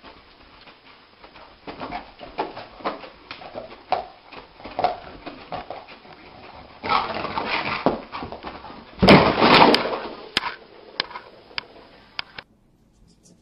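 A dog whimpering in a series of short sounds, with louder, noisier outbursts about seven and nine seconds in.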